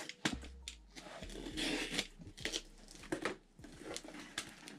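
Small cardboard box being opened by hand: tearing and crinkling of packaging, with scattered sharp clicks and knocks as it is handled.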